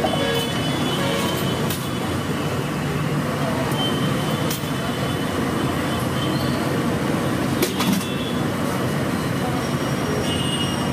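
Samosas deep-frying in a kadhai of hot oil: a steady sizzle over a low rumble, with a few faint clicks.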